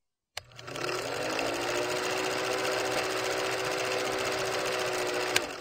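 Old film projector running: a fast, even mechanical clatter over a motor tone that rises as it gets up to speed. It starts and stops with a sharp click.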